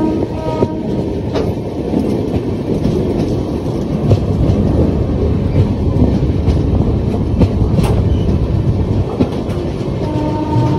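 Passenger train running, heard from its open door or window: a dense rumble of wheels on rail, with occasional sharp clacks and wind buffeting the microphone. A steady multi-tone horn sounds at the start, cuts off under a second in, and sounds again near the end.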